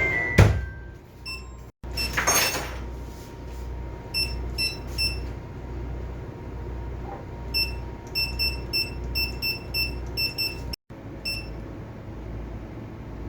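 Short electronic key beeps from the AIS unit's keypad as its buttons are pressed, in quick runs of several, over a steady low hum of the tug's machinery. A single knock sounds just after the start, then a brief rustle.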